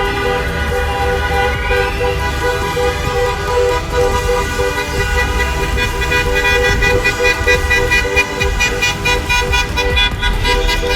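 Many car horns honking together in celebration, several held long and overlapping, with quick repeated beeps joining in from about halfway, over the low rumble of traffic.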